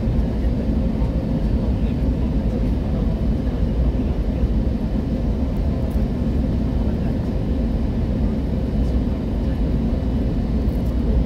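Steady low rumble inside the passenger cabin of an Airbus A320neo on final approach: engine and airflow noise, with a faint steady hum over it.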